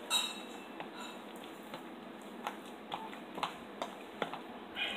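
Sticky glue slime being kneaded by hand after Tide detergent is added to activate it: scattered short squelches and sticky clicks as the hand presses and pulls the still-sticky mass.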